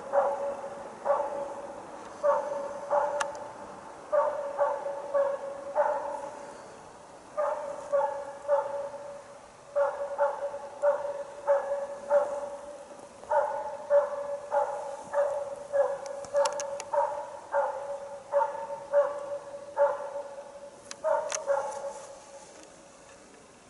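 Jämthund (Swedish elkhound) bay-barking at a moose held at stand: runs of barks, about two to three a second with short pauses, stopping near the end.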